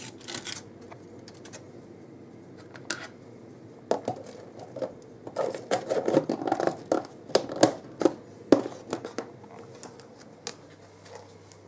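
A plastic food tub and its lid being handled, with foil-wrapped food inside: scattered clicks at first, then a dense run of plastic clicks and rustling about halfway through as the lid goes on.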